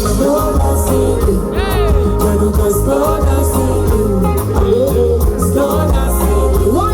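Live band playing an upbeat Afropop groove with a heavy bass line and singing, loud through a PA system.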